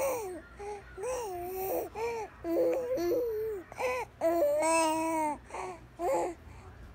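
Baby of a few months babbling and cooing in a string of short high-pitched vocal sounds, with a longer drawn-out one about five seconds in.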